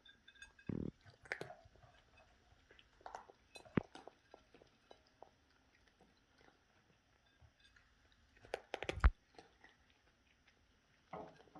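A cat chewing and eating food off a plate: irregular soft smacks, crunches and clicks, with a louder knock a little under a second in and a loud cluster about nine seconds in.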